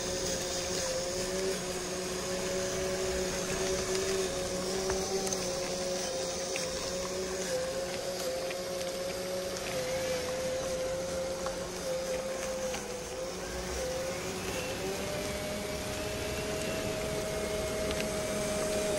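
Radio-controlled truck's electric drive motor and gearbox whining steadily as it drives, the pitch wavering a little and stepping up about two-thirds of the way through.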